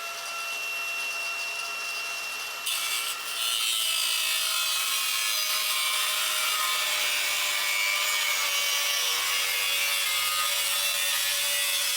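A power cut-off wheel spins up with a steady high whine. About three seconds in, it bites into the RZR's frame metal and turns into a loud, steady grinding hiss. It is cutting through the frame to free a jammed differential.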